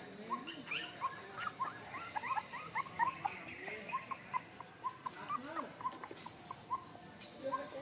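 Puppy whimpering in a run of short, high, rising squeaks, several a second, while it licks milk from a spoon, with scattered small clicks of lapping.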